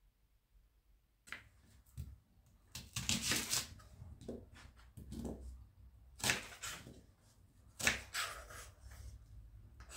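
Irregular rustles, clicks and knocks of objects being handled, starting about a second in and coming every half second to a second and a half.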